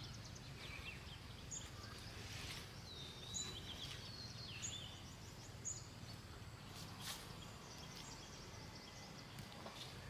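Small birds chirping in short, scattered high calls and brief trills over a faint steady low hum, with a couple of sharp clicks.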